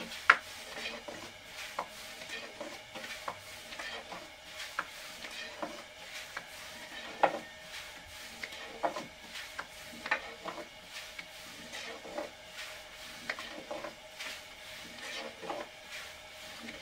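Irregular light knocks and clinks of objects being handled, about one or two a second, over a faint steady hiss.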